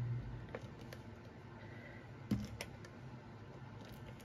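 A few scattered light clicks and taps of hands handling a plastic tape runner against cardstock on a desk, with one louder knock a little over two seconds in.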